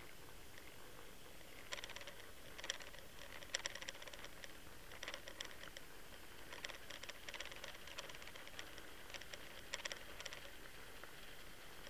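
Irregular clusters of rapid clicking and rattling from fishing tackle on the retrieve, picked up through an underwater camera's housing over a steady hiss.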